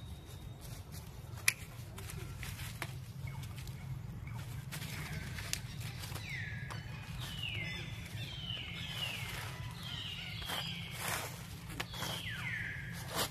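A run of about ten high whistled animal calls, each falling in pitch, a little more than one a second from about five seconds in. Before them, dry leaves rustle and a tripod's metal and plastic parts click, sharpest once about a second and a half in, as a monkey handles it. A low steady rumble runs underneath.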